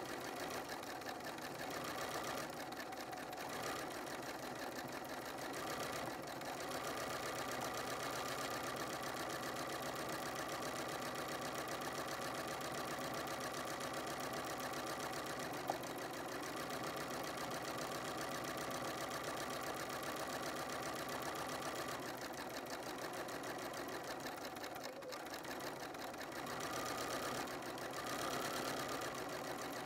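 Bernina 590 sewing machine running continuously, stitching dense free-motion embroidery, its speed easing off and picking up now and then. A single sharp click about halfway through.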